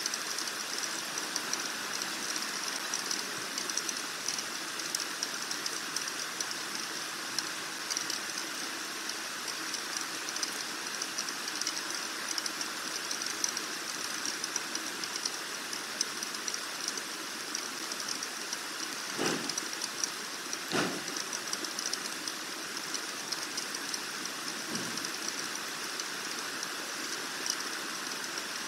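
Steady hiss of outdoor air and weather noise on a nest webcam's microphone, with two dull knocks a little over two-thirds of the way through and a fainter one soon after.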